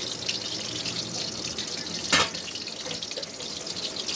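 Cooking oil sizzling in a pan as a steady hiss, with one louder spit about two seconds in.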